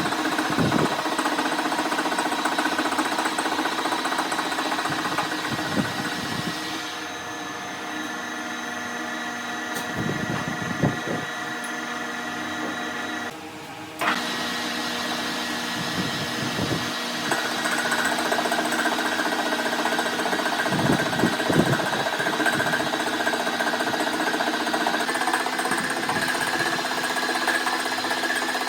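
A metalworking machine tool running steadily with a whining hum and occasional short cutting rumbles; the sound briefly drops away a little past halfway through, then resumes.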